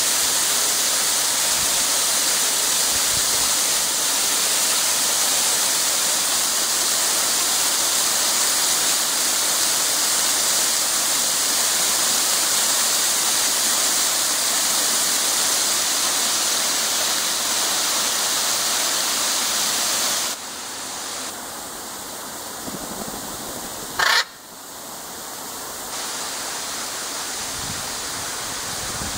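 Waterfall rushing steadily into a pool. About twenty seconds in the rushing drops away to quieter surroundings, and a few seconds later comes a single short, loud squawk from a blue-and-yellow macaw.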